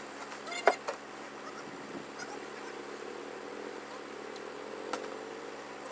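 Crane truck's engine running steadily, its pitch rising slightly near the end. A brief, loud, pitched sound cuts in about a second in.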